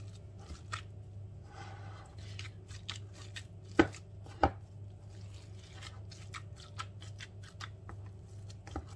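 Gloved hands kneading and squeezing minced veal mixed with chopped onion and spices in a plastic bowl: a run of small irregular squishes and crackles, with two sharper knocks a little under four and about four and a half seconds in.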